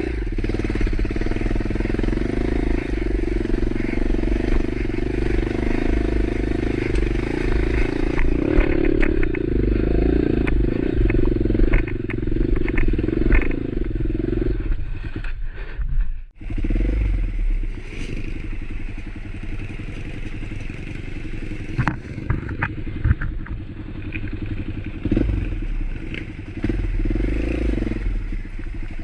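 A motorcycle engine running steadily while riding, with scattered rattles and knocks in the middle and a brief dip in the sound about sixteen seconds in.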